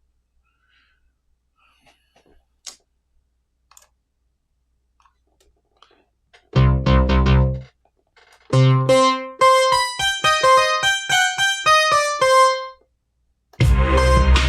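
Electric-piano-style synth played on its own: after a few faint clicks, a chord with a deep bass note sounds about halfway through, then a run of quick single notes up and down. Near the end a full beat with drums and bass starts playing.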